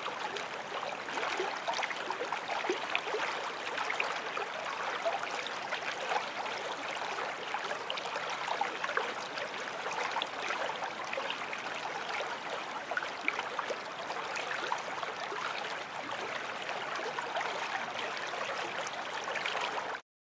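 Stream water flowing steadily, babbling and trickling with small bubbling pops over an even rush. The recording cuts off abruptly at the very end.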